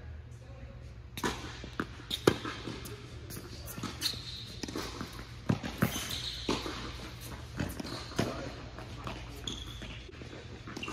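Tennis rally in an indoor hall: sharp racquet strikes and ball bounces on the hard court, irregularly spaced, the loudest about two seconds in, with short squeaks of tennis shoes on the court in between.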